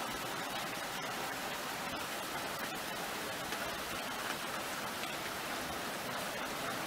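Graupel (snow hail) falling thickly: a steady, dense hiss of countless tiny pellets hitting the ground and roof tiles.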